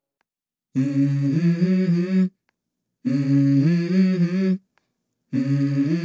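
Background music: a hummed vocal melody, unaccompanied, in three phrases of about a second and a half each with short gaps, starting about a second in.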